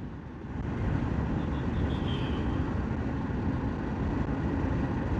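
Bajaj Dominar 400's single-cylinder engine and wind noise while riding along a road, growing louder over the first second as the bike picks up speed.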